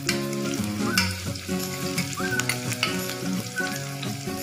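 Sliced onions and green chillies sizzling in hot oil in an open pressure cooker, with a spatula stirring and scraping against the metal pot in frequent short clicks, as the onions are sautéed toward golden brown.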